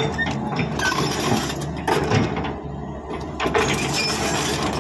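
Excavator's diesel engine running steadily under bursts of metallic clanking and scraping, about one second in, around two seconds, and again from about three and a half seconds.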